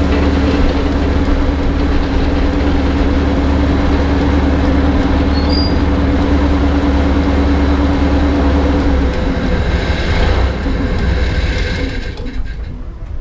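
Small Kö diesel shunting locomotive's engine idling steadily with a constant low hum while the locomotive stands. The steady engine note drops away about nine seconds in, a brief brighter rushing noise follows, and the sound then fades out near the end.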